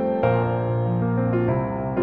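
Background piano music, with soft chords changing about every second.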